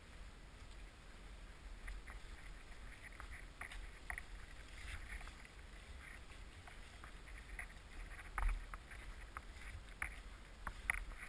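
Waterproof nylon jacket rustling and crinkling as the wearer walks, with scattered light clicks over a low rumble of handling noise; a louder knock about eight seconds in.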